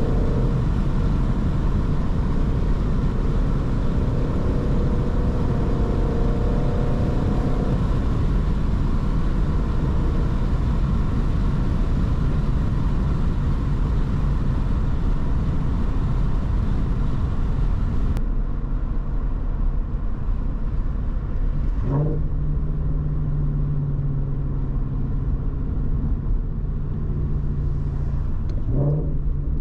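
2019 Shelby GT350's 5.2-litre flat-plane-crank V8 running under way, with steady tyre and road noise. Twice in the second half, about seven seconds apart, the engine note rises in a quick rev and then settles into a steady lower drone.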